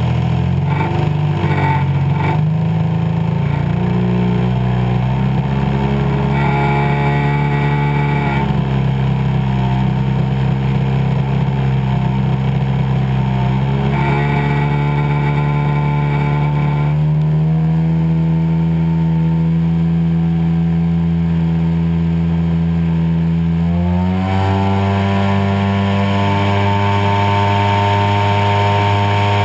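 Desert Aircraft DA-100 twin-cylinder two-stroke petrol engine and propeller of a 40% scale RC Super Cub float plane running in flight, heard close up from on board. The engine note holds steady, rises a little a few seconds in, and climbs sharply about four fifths of the way through as the engine speeds up.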